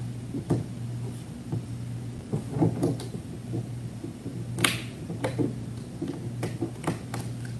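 Scattered light clicks and taps from handling small hard objects, one sharper click about two-thirds of the way through, over a steady low hum.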